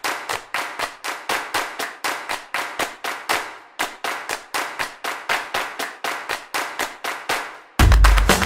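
A steady rhythm of sharp hand slaps, about three a second, each with a short ring-out. Near the end a loud music track with a heavy bass beat cuts in.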